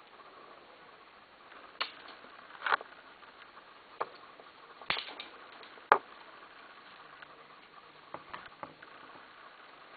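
A guinea pig rummaging through hay and sweepings in a plastic dustpan. About eight scattered rustles and sharp clicks stand out against a low hiss, the loudest near three and six seconds in.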